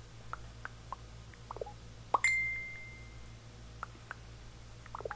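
Light scattered clicks of typing on a tablet, and about two seconds in a short pop with a high tone ringing on for about a second: the Messenger message-sent sound.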